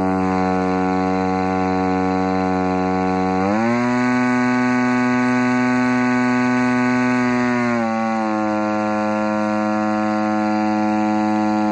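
DLE-35RA single-cylinder two-stroke gas engine turning an APC 18x12 racing prop at high throttle on a test stand. Its pitch steps up about three and a half seconds in, holds for about four seconds, then eases back a little.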